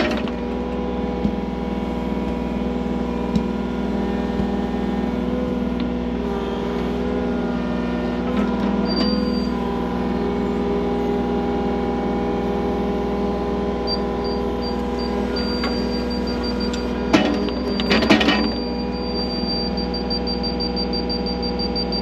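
Skid loader engine running steadily under work. A high-pitched warning beep comes in about nine seconds in, repeats on and off, and pulses quickly near the end. A few metallic clanks come about seventeen to eighteen seconds in.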